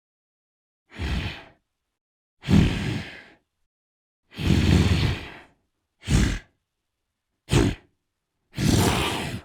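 Sound-designed vocal noises of a giant Titan: six separate deep breaths, sighs and grunts, each a second or less, with dead silence between them.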